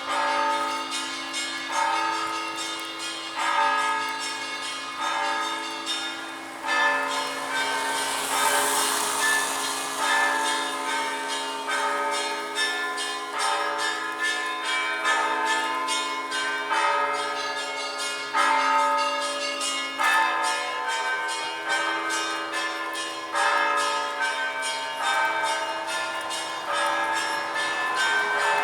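Orthodox ringing on bila, hanging metal plates struck with hammers, in a fast, continuous stream of strikes. Sustained ringing tones hang under the strikes while the pitch pattern on top shifts every second or two.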